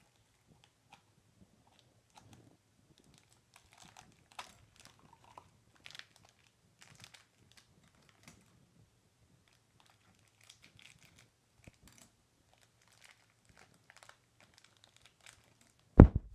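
Crinkling and tearing of the plastic wrapper of a Shopkins blind bag being opened by hand, in scattered short rustles. A sharp, loud knock near the end.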